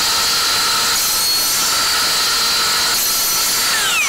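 Circular saw with a Diablo 7¼-inch 48-tooth cermet steel-cutting blade cutting through thin-walled hollow steel tube: a loud, steady, high-pitched cutting noise. Near the end the blade breaks through and the saw's pitch falls as it winds down.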